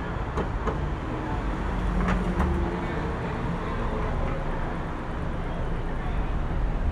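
City street traffic ambience at night: a steady low rumble of vehicles, with a few sharp clicks in the first two and a half seconds.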